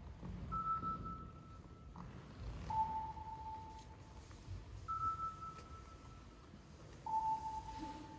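Sparse electronic music: a single pure high tone and a lower pure tone alternate, each held about a second and a half with short gaps between, two of each, over a low rumble.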